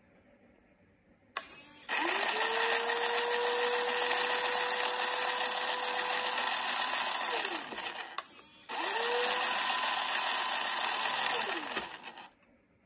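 Small electric motor of a handmade radio-controlled model tractor running twice, for about five seconds and then about three, with a high gear whirr; each run starts with a whine rising in pitch as it spins up and ends with it falling as it stops. A short click comes just before the first run.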